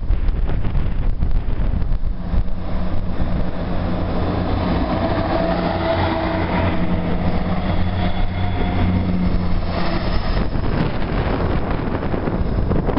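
Class 158 diesel multiple unit running past at close range: a steady engine hum with wheel and rail noise, strongest through the middle and easing off near the end, over wind buffeting the microphone.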